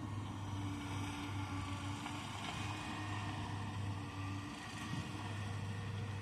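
Heavy diesel engine of an excavator running steadily under work, a constant low hum with a hiss over it, briefly faltering about three-quarters of the way through.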